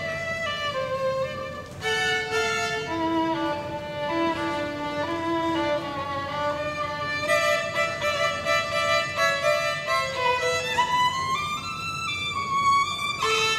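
A violin bowed in a melody of held and moving notes, with a rising run about ten seconds in.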